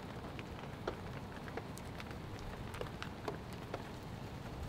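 Raindrops and drips from the trees pattering on a tarp overhead: scattered, irregular light ticks over a steady low hiss.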